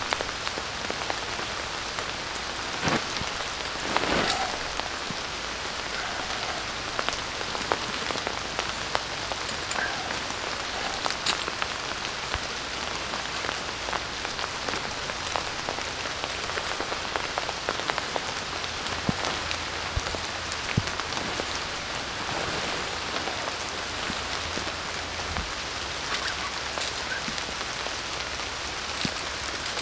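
Steady rain falling, an even hiss with many scattered sharper drops ticking through it.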